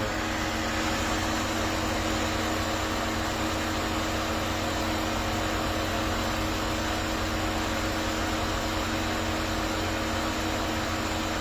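Steady hum and hiss of a car idling, with a few constant tones and no change in pitch.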